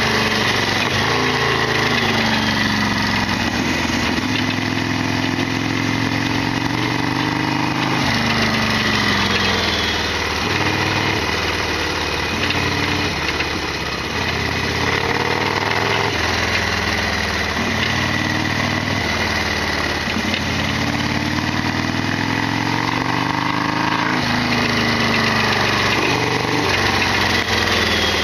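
Harley-Davidson Sportster 1200 air-cooled V-twin engine running while the bike is ridden. Its note falls and rises slowly with road speed, with a couple of sudden steps, over a steady rush of wind.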